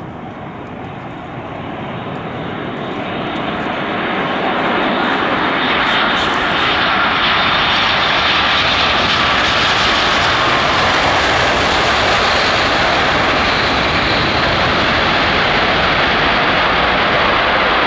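Boeing 787 jet airliner's twin turbofan engines, swelling over the first few seconds as it comes in low to land, then a steady loud roar as it touches down and rolls along the runway.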